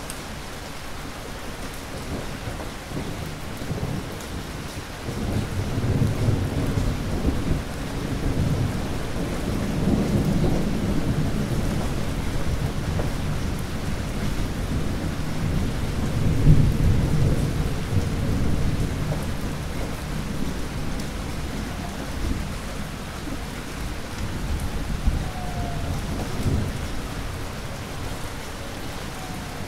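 Steady heavy rain with rolling thunder: a low rumble swells from about five seconds in, is loudest a little past the middle, and dies back toward the end.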